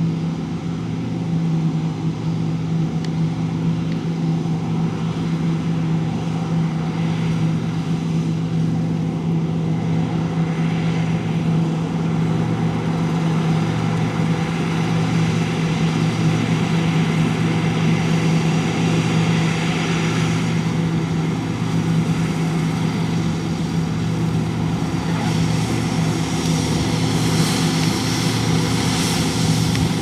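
Diesel engine of large farm harvest machinery running steadily at constant working speed, with an even hum. A brighter rushing noise joins in near the end.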